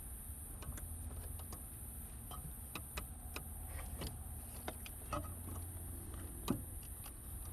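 Scattered light clicks and knocks of work on car parts, the sharpest about six and a half seconds in, over a steady low hum and a high hiss.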